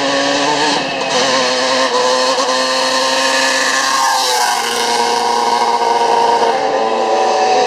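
Vintage pre-1985 enduro dirt bikes riding fast along a dirt track. One engine passes close about four seconds in, its note dropping as it goes by, while several more engines draw near.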